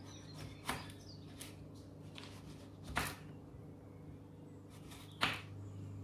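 Kitchen knife slicing through a cucumber onto a wooden cutting board: about five crisp cuts at uneven intervals, the loudest about three and five seconds in, over a low steady hum.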